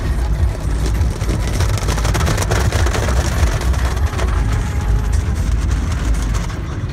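Automatic tunnel car wash heard from inside the car: a steady low rumble with the hiss of water and foam spraying and cloth strips washing over the windshield, with a burst of slapping about two and a half seconds in.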